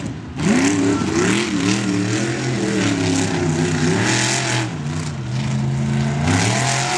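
Lifted mud truck's engine revving under hard throttle. Its pitch climbs sharply about half a second in, rises and falls as the throttle changes, settles lower near the middle, then climbs again near the end.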